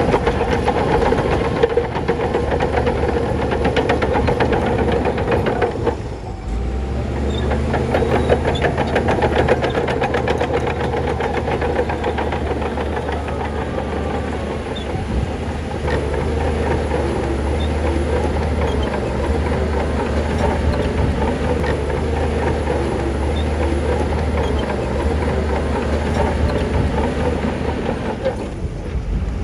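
Shantui bulldozer's diesel engine running under steady load, with its steel tracks clattering and clanking as it works stone; the engine note dips briefly about six seconds in.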